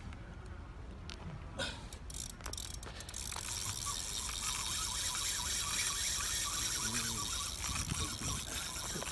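Spinning reel drag clicking in short spurts, then buzzing steadily from about three seconds in as a large hooked fish, a tuna, pulls line off against the bent rod.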